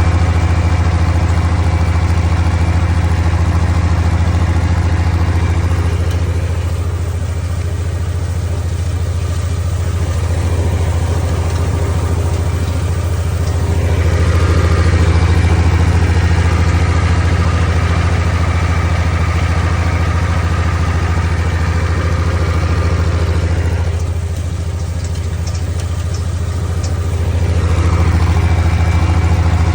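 Farmall diesel tractor engine running steadily with a strong low hum, swelling and easing slightly now and then.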